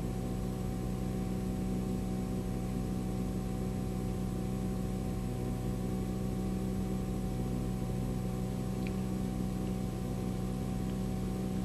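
Small 4 hp outboard motor running steadily at an even pitch while the catamaran motors along.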